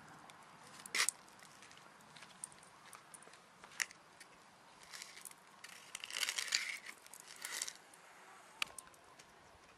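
Faint, scattered crackles and crunches of a snack being eaten: a wrapper crinkling and bits cracked between the teeth. The clicks are sparse at first, with a busier run a little past halfway.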